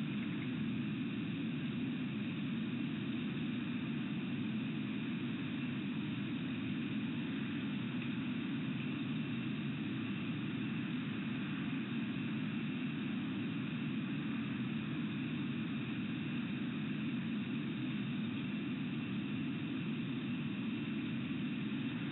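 Steady low rumbling hiss of background noise with faint, steady high tones. No bird calls or other distinct events stand out.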